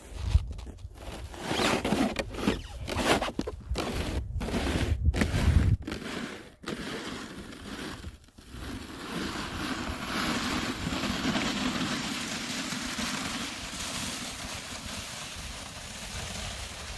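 A sled scraping and crunching over snow. It goes in uneven pushes and jolts for about the first six seconds, then settles into a steady sliding hiss.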